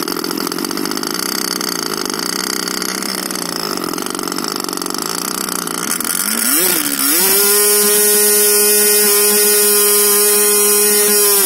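MVVS 3.5 cc two-stroke model-aircraft engine running on a petrol–oil mix with an O.S. G5 glow plug. It runs at low throttle with its speed wavering. About seven seconds in it revs up to a steady, high-pitched full-throttle run.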